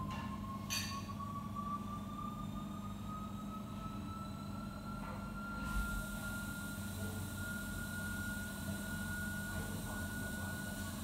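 Steady machinery hum in a commercial kitchen, with a faint whine that slowly rises in pitch and then holds steady. A sharp click about a second in and a few faint knocks and clatters.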